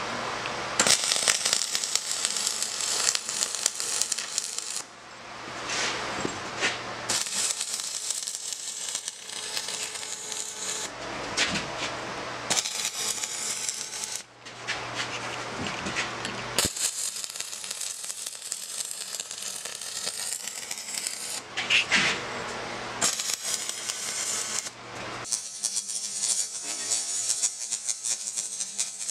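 Dual-shield (flux-cored, gas-shielded) MIG welding arc crackling and sizzling, in several runs that stop and start abruptly as the teeth of a steel reamer are welded out.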